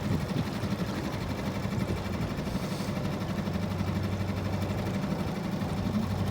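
Small outboard motor on an aluminium jon boat running steadily at low speed, a constant low drone.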